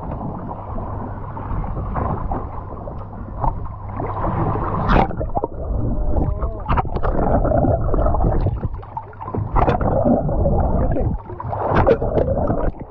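Water heard through a camera held underwater: a muffled, low churning rumble and gurgle of moving water and bubbles, broken by scattered clicks and a few short squeaky glides.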